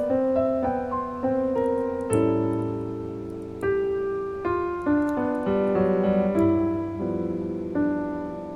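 Background piano music: a slow, gentle melody over sustained chords.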